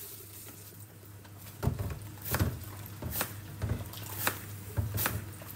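Kitchen knife chopping through a white onion onto a hard cutting board: a series of sharp knocks, roughly one every two-thirds of a second, starting about one and a half seconds in, over a low steady hum.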